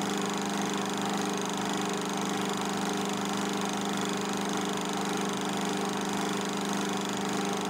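Film projector running: a steady mechanical hum with a fast, even flutter underneath.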